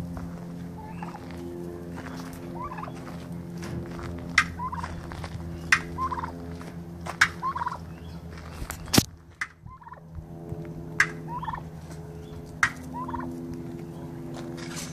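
Tom turkey gobbling in short bursts while pecking hard at a pickup truck's chrome front bumper, about six sharp knocks spaced a second or two apart. A steady low hum runs under it.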